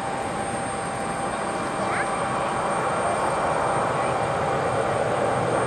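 Jet engine noise from an Airbus A319-132's two IAE V2500 turbofans as the airliner rolls out along the runway after touchdown. The noise is steady with a thin high tone on top, and it swells after about two seconds.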